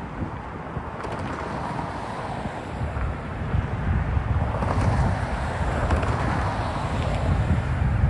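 Road traffic: cars driving over a level crossing, their tyre and engine noise swelling and fading as each passes, the loudest about halfway through. Wind buffets the microphone with a gusty low rumble.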